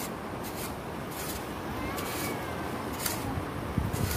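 A long-handled shovel digging into beach sand: short, hissy scrapes about once a second, over a low rumble of background noise.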